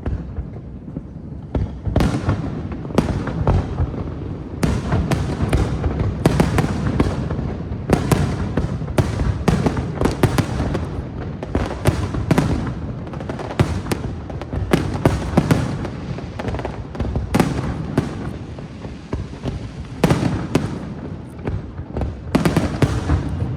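Fireworks display: many bangs in quick succession, starting about two seconds in and continuing densely throughout.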